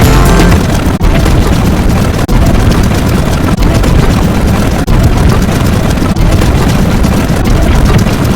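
Very loud, distorted wall of noise from a layered sound effect. It drops out briefly about every 1.3 seconds.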